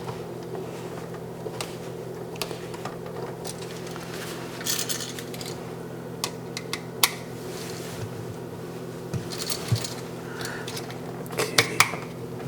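Scattered small metallic clicks and scrapes of wires and a screwdriver being worked on a GFCI receptacle's terminals, over a steady low hum.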